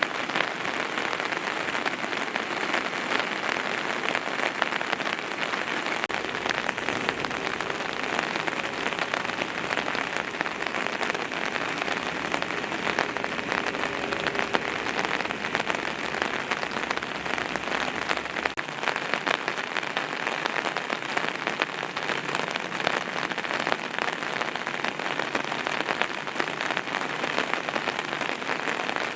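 Steady, dense water noise with a fine patter all through, the sound of heavy rain or of churning floodwater. A faint low rumble joins it from about six seconds in until past the middle.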